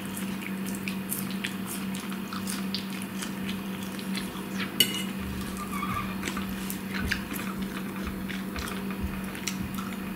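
Close-up eating sounds of someone chewing lettuce salad, with small wet mouth clicks throughout. A metal fork clinks sharply against the plate about five seconds in. A steady low hum runs underneath.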